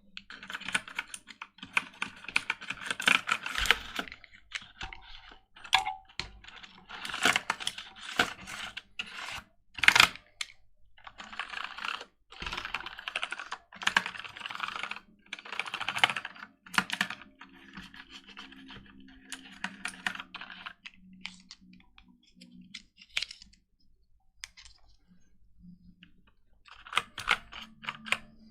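Brush scrubbing over a computer keyboard, the keys clicking and rattling under the bristles, in bursts of a few seconds with short pauses.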